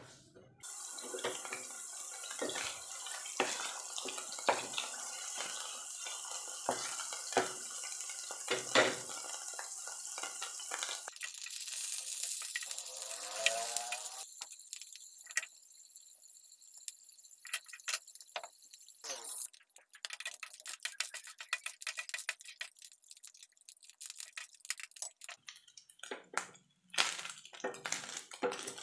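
Ground pork sizzling in hot oil in a frying pan while a wooden spatula breaks it up and scrapes and taps against the pan. The sizzle fades about two-thirds of the way through, leaving scattered spatula taps.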